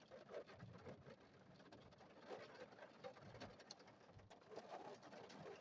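Near silence: faint patter of heavy rain, with a few soft, short low sounds scattered through it.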